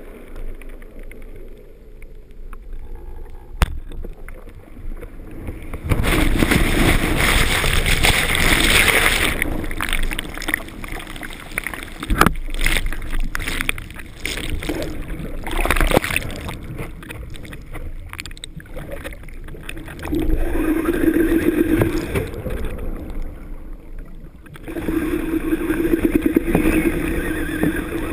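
Breaking waves churning the shallow sea into whitewater, heard underwater as a loud rushing roar. It surges in about six seconds in, again around twenty seconds and once more near the end, with a sharp knock or two in between.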